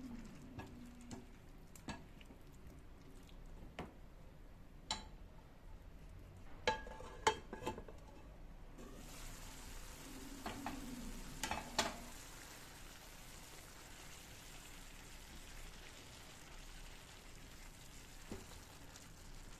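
A few sharp clinks of a utensil against cookware, some of them ringing briefly, then from about halfway a steady sizzle of food frying in a pan.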